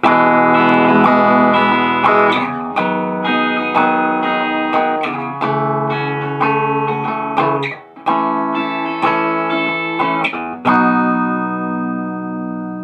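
Squier Bullet Telecaster electric guitar played clean through a Roland Cube amplifier on the middle pickup setting, neck and bridge pickups combined: a run of strummed chords, a short break about eight seconds in, then a final chord left to ring out.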